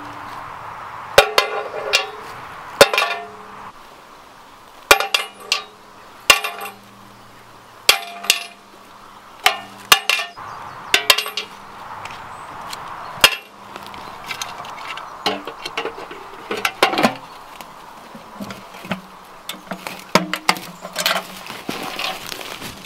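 Metal rifle cartridge cases clinking against a steel ammo can, a dozen or so sharp clinks with a brief ring at irregular intervals, loudest in the first half and softer toward the end.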